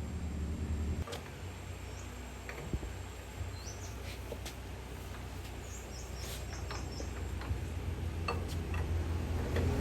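Quanchai D15 diesel engine running with a steady low throb that grows louder through the second half. Birds chirp in the background, and there are a few sharp clicks.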